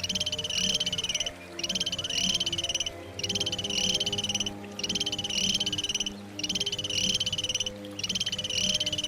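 An animal's rapid pulsed trill, about 1.4 s long, repeated six times with short pauses between.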